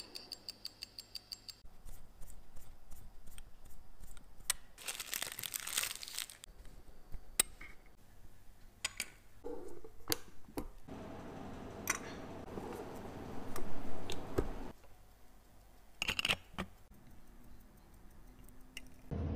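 Tissot's ETA C07.111 automatic movement ticking rapidly and evenly as its balance wheel is set going. Then comes a string of small clicks, taps and scraping from watchmaker's tools on the watch, with a longer, louder stretch of pressing and rubbing a little past the middle as the sapphire crystal is pressed into the case.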